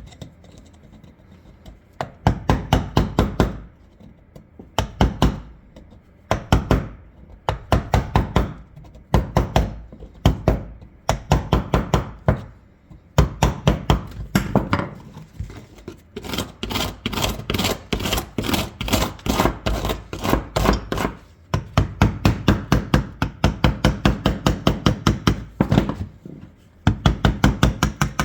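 Rapid tapping or knocking in repeated bursts of about eight to ten strikes a second, each burst lasting one to three seconds with short pauses between, and one longer run of about five seconds in the middle.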